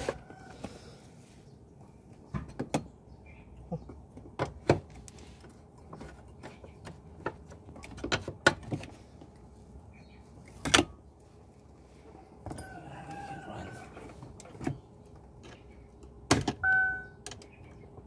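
Irregular clicks and knocks of hand tools working on the plastic and metal parts of a car's automatic gear shifter assembly, opened up because the shifter is broken and jammed. A short steady beep sounds about three-quarters of the way through.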